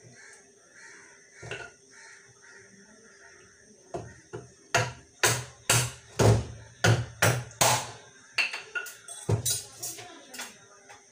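A wooden stick beating down on a hard pumpkin on the kitchen counter, about a dozen heavy knocks at roughly two a second, starting about four seconds in and tailing off near the end.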